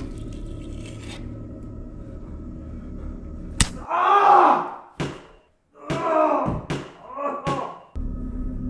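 A low steady drone, then a sharp smack about three and a half seconds in, followed by a few wailing cries that rise and fall, broken by sharp clicks. The drone returns near the end.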